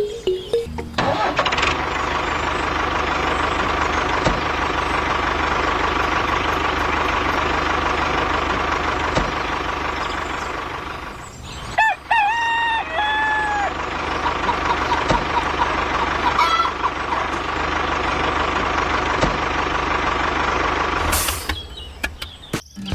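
Model mini tractor's small motor running steadily. It drops out briefly near the middle, where a rooster crows, then runs again and stops a couple of seconds before the end.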